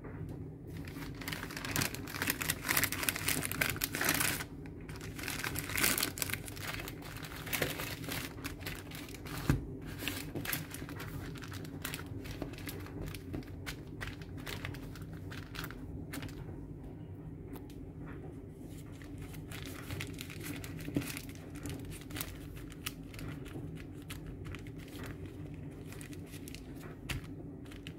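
Baking paper crinkling and rustling as hands fold it around a block of homemade butter. Busiest in the first ten seconds or so, then softer and sparser.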